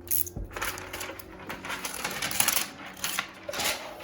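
Utility knife trimming window tint film against the glass: a run of quick, irregular clicks and scrapes.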